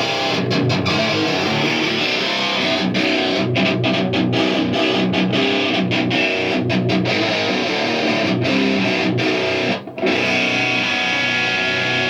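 Distorted electric guitar riffing through two amplifiers at once: a Dime D100 head and an Orange amp fed from the Dime's line out, set to the same tone. The playing breaks off briefly about ten seconds in.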